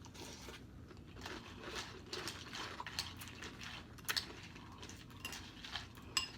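Someone eating a bowl of cereal with milk: a spoon clicking against the bowl a few times, with chewing between the clicks.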